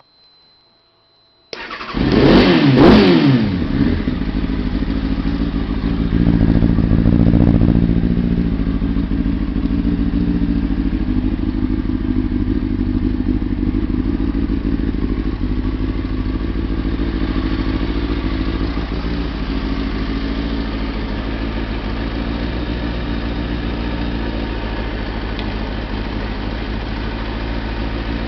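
Kawasaki ZX-6RR's inline-four engine starting about a second and a half in, revving up and down briefly, rising again a few seconds later, then settling to a steady idle. It runs with freshly cleaned spark plugs, which the owner says has cured its misfire and rough running.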